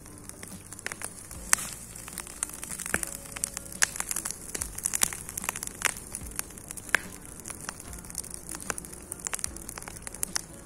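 Bonfire of cut garden branches burning, with irregular sharp crackles and pops.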